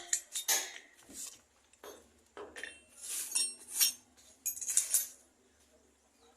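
Metal tools and motor parts clinking and knocking against each other during motor repair work: irregular sharp clinks, some ringing briefly.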